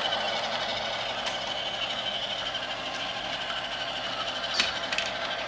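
Model train set running on its track: a steady whirring hum with a few light clicks, the sharpest about four and a half seconds in.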